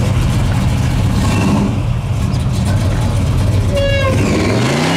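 Oldsmobile Cutlass 442's V8 running with a steady deep exhaust note, revving up and back down near the end; a brief high squeal sounds about four seconds in.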